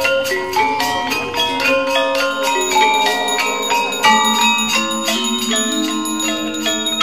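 Background music: a continuous melody of bell-like notes over held lower tones.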